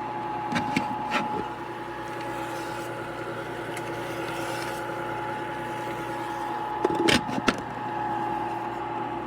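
Whynter compressor ice cream maker running: a steady electric motor hum with fixed tones. A few sharp clicks come about half a second to a second in, and a short cluster of knocks comes about seven seconds in.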